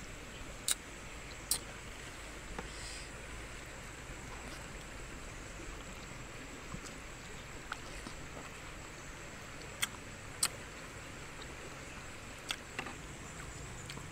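Eating sounds of a person eating braised pork with a metal spoon: a handful of short, sharp clicks and smacks, scattered across several seconds, over a steady outdoor background hiss.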